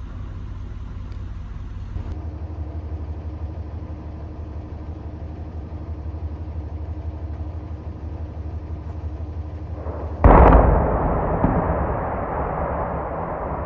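A demolition blast goes off about ten seconds in: one sudden loud bang that trails off over a few seconds into a rumble. Before it, a steady low hum.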